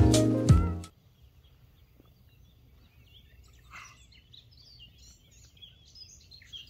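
Background music that cuts off abruptly about a second in, followed by a near-quiet pause and then faint bird chirps.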